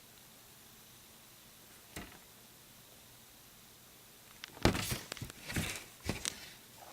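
Vinyl LP album jacket being handled: one soft knock about two seconds in, then a quick run of knocks and rubbing of the sleeve near the end.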